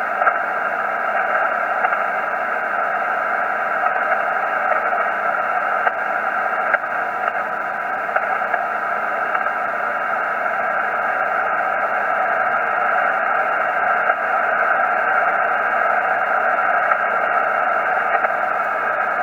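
Steady hiss of 40-meter band noise and static from a Yaesu FT-847 receiving single sideband, heard in the gap between transmissions while the net waits for check-ins. The hiss is held within the narrow voice passband of the receiver.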